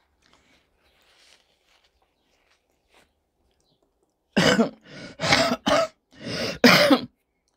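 A woman coughing, a short fit of about five coughs close together starting a little over four seconds in.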